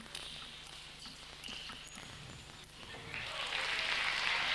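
Table tennis rally with a few sharp clicks of the ball on bats and table, then crowd applause breaking out about three seconds in, louder than the rally, as the point ends.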